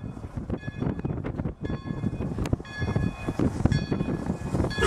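Pere Marquette 1225, a 2-8-4 Berkshire steam locomotive, approaching under steam with rapid exhaust chuffing while its bell rings about once a second. Its steam whistle starts right at the end.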